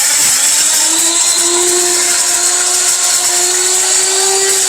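A 1500-watt electric spice grinder runs at full speed, grinding hard whole spices. Its high-speed motor gives a loud, steady whine with a hiss, and the pitch rises a little over the first second or so as it comes up to speed, then holds steady.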